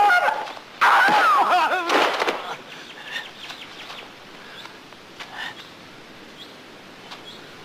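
A fighter's high-pitched, wavering battle cries, the voice sliding up and down in pitch, loud from about a second in to about two and a half seconds in; then much quieter for the rest.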